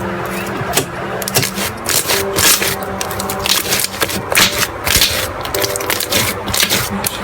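Crunchy slime being squeezed and pressed, giving a dense, irregular run of crackles and pops, over background music.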